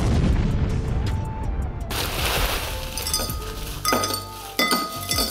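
Ice cubes poured from a plastic bag into a drinking glass, clattering and clinking against the glass in a rush and then in several smaller bursts. Background music plays underneath.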